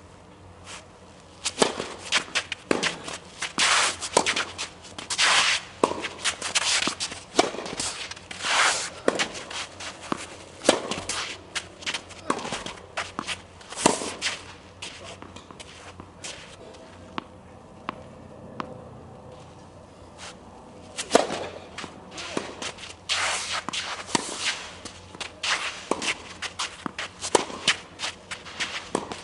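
Tennis being played: sharp pops of the ball off rackets and court, mixed with footsteps and shoes scuffing and sliding on the court. There is a quieter lull a little past halfway.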